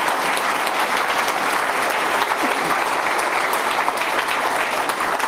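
Audience applauding: dense, steady clapping of a large crowd, easing slightly near the end.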